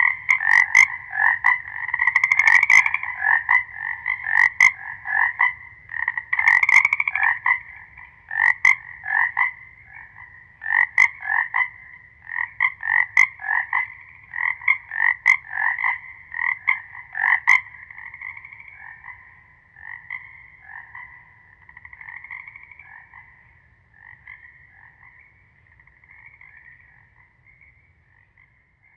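A chorus of frogs calling, many overlapping rapid croaks, loud at first and then fading away over the last ten seconds or so.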